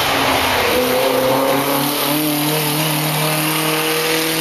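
Rally car engine running hard at high revs as the car drives past on the stage, its pitch stepping up a few times.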